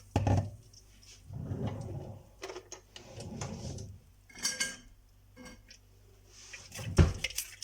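Kitchenware handled while blended lemon mixture is strained into a pot. There is a knock at the start and two stretches of low rushing sound. A ringing clink comes about halfway through and a heavy thump near the end.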